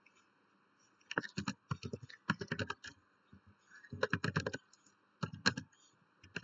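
Typing on a computer keyboard: quick runs of key clicks in short bursts with brief pauses, starting about a second in.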